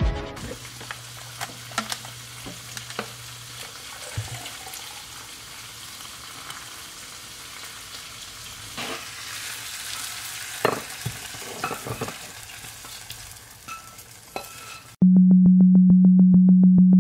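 Kitchen handling sounds: the lid and jar of a blender clattering and a blended drink being poured into a mug, as scattered clicks and clinks over a faint hiss. About fifteen seconds in, a loud, low electronic tone cuts in abruptly and holds, pulsing rapidly.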